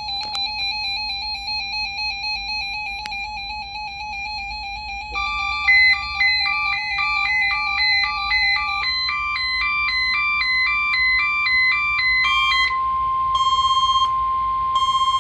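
Several NOAA weather radios sounding their alert alarms at once, repeating electronic beep patterns layered over each other, set off by the weekly test of the weather radio warning signal. About nine seconds in, the steady 1050 Hz warning alarm tone comes in under the beeping and holds.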